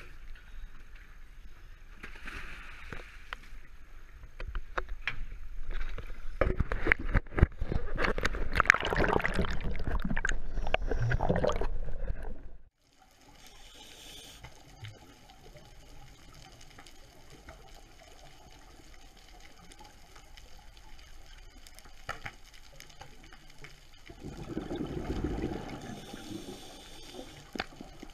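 Sea water splashing and churning loudly as scuba divers drop off a dive boat into the sea, cutting off abruptly about halfway through. After that comes a quieter, muffled underwater hiss, with a louder low rushing stretch near the end.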